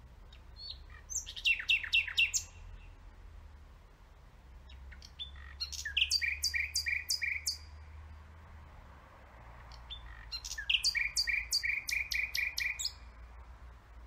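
Nightingale singing: three song phrases a few seconds apart, each opening with a few sweeping notes and breaking into a fast run of repeated, sharp notes.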